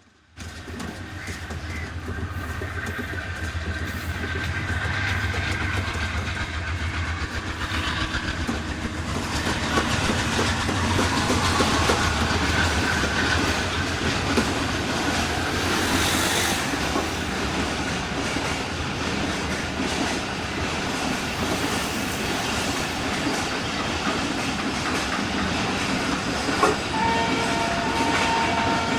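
Passenger train running on the rails with a continuous rumble and clickety-clack, growing louder over the first ten seconds or so. Near the end there is a sharp knock followed by a steady high tone.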